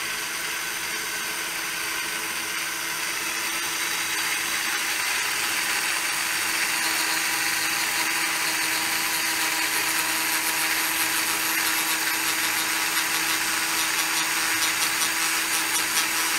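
Motor-driven rotary cutter on a rose engine lathe spinning and cutting into the workpiece: a steady whine with hissing cutting noise that grows louder about four to six seconds in.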